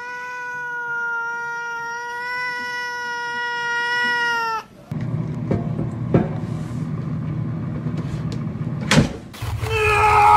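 A domestic cat's single long, steady yowl of about four to five seconds, rising a little as it starts and dipping as it ends. Then a low background with a few clicks.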